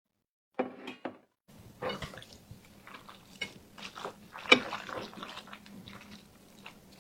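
Close-miked eating: irregular biting and wet chewing of food, with a sharp click about four and a half seconds in.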